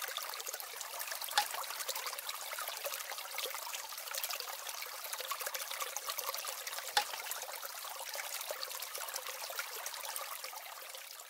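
Water trickling steadily, like a small stream, a continuous hiss full of tiny clicks. A couple of sharper ticks come about a second and a half in and again around seven seconds, and the sound fades out near the end.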